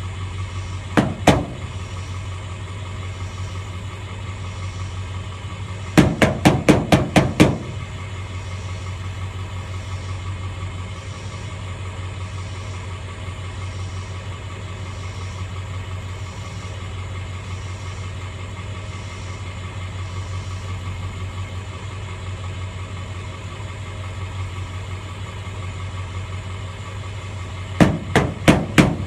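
Irrigation pump motor running with a steady low hum. Short runs of sharp clicks cut through it: two about a second in, about six in quick succession around six seconds in, and about five more near the end.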